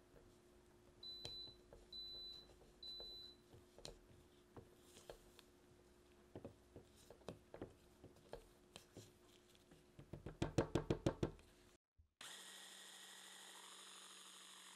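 Silicone spatula scraping and tapping around the plastic bowl of a mini food processor, with a few short high squeaks and a quick run of loud knocks about ten seconds in as the spatula is knocked against the bowl. After a brief gap, a steady hiss takes over.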